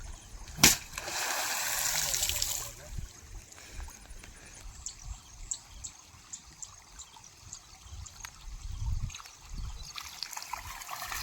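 River water trickling and splashing, with a sharp knock just under a second in followed by about two seconds of louder splashing.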